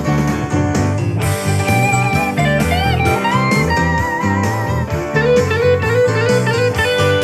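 Blues-style song with a bent, wavering lead electric guitar over a steady beat, played back through a portable Bluetooth speaker for a sound test.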